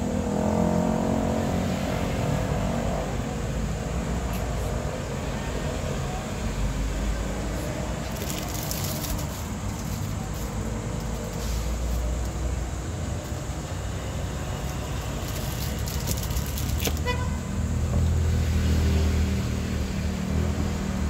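Motor vehicles passing by, with engines running close by near the start and again near the end, and a sharp click about three quarters of the way through.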